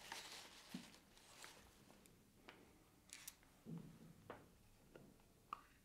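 Near silence: quiet room tone with faint rustling and a few soft, scattered clicks, as of hands handling things at close range.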